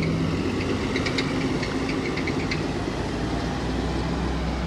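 2009 NABI 40-LFW hybrid-electric transit bus driving away, its engine and drive running steadily, with a low rumble that grows stronger over the last second or so.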